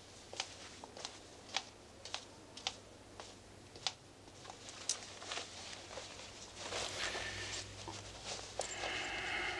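Light clicking footsteps on a hard floor, irregularly spaced about half a second apart, then cloth rustling as a trench coat is taken off.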